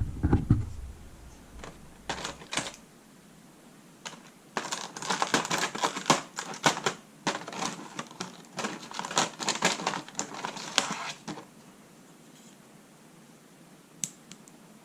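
Small plastic action-figure accessories, display stands and parts, being handled: a few clicks, then a dense run of clicking and rattling for several seconds, then a couple of lone clicks near the end.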